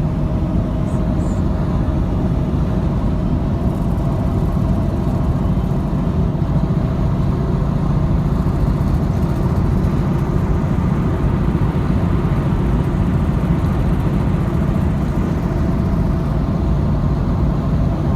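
Steady road and engine noise from inside a moving car: an even low rumble with a faint constant hum.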